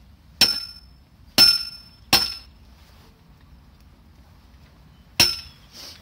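A brick striking the top of a metal bird-feeding-station pole to drive it into the ground, used in place of a mallet. Four sharp knocks, each with a short metallic ring: three in the first two seconds, then one more near the end.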